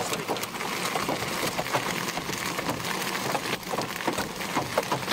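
Hailstones pelting a car's bodywork and windscreen, heard from inside the car: a dense, continuous clatter of many sharp hits.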